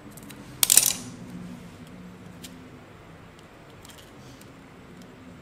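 Metal scissors handled over a stone floor while cutting double-sided tape: one crisp metallic clink a little under a second in, then a few faint light ticks.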